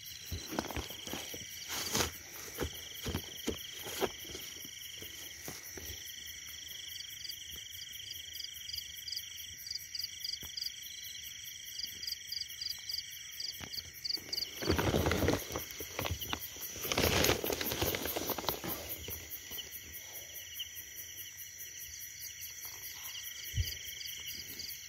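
Night-time chorus of crickets and other insects, several steady high trills at once, one of them pulsing. Over it come a few sharp clicks in the first seconds and two louder bursts of rustling about halfway through.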